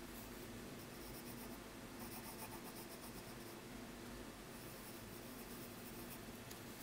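Graphite pencil scratching faintly on paper as lines are sketched.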